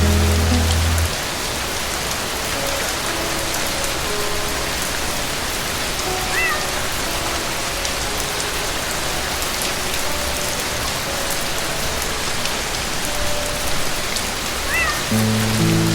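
Steady rain, an even hiss. Soft low music notes fade out about a second in and come back near the end, and two brief high chirps come through the rain.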